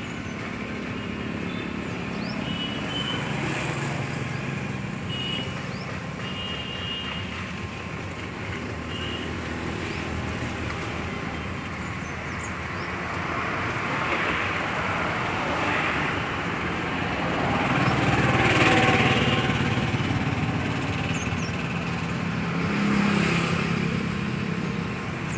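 Road traffic running steadily, with vehicles passing by in three louder swells, the loudest around the middle.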